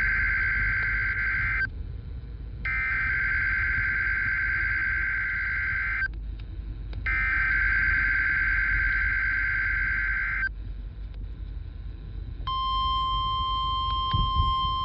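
NOAA Weather Radio Emergency Alert System SAME header: three bursts of warbling two-tone digital data, each about three and a half seconds long with a second's gap between. About twelve seconds in, the steady 1050 Hz warning alarm tone starts, sounded here as the weekly test of the alert signal.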